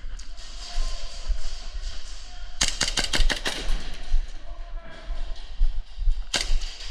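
Airsoft gun firing a rapid burst of about eight shots in a second, then a single shot near the end, sharp clicks over a low rumble.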